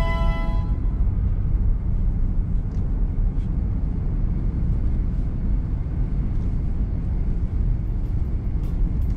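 Steady low rumble of road and engine noise heard from inside a moving vehicle's cabin on a paved road. A piece of violin music fades out within the first second.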